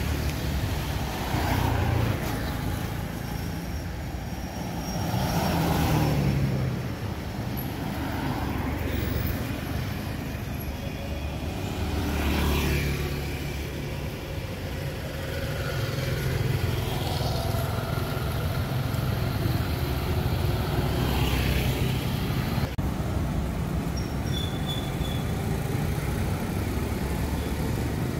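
Road traffic on a city street: a steady low rumble, with vehicles passing every few seconds, each swelling and fading away.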